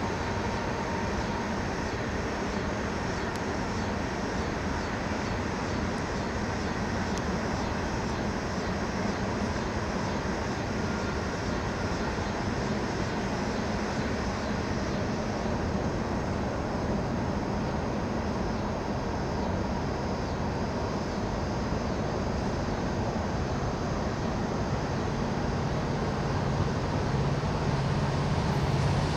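Freight train rolling past: a steady rumble and wheel noise that holds even, growing a little louder with a low steady hum coming in near the end.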